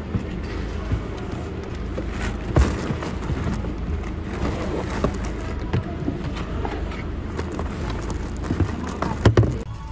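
Shopping bags and plastic-wrapped boxes being shoved and packed into a car's cargo area: rustling with a few knocks, the loudest cluster near the end, over a steady low rumble.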